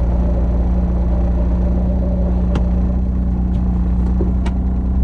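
Honda Beat's drivetrain running steadily: a low drone with a steady hum over it, from the car whose transmission the owner reports as making an abnormal noise although the gears still go in normally. Two sharp clicks come about halfway through and near the end.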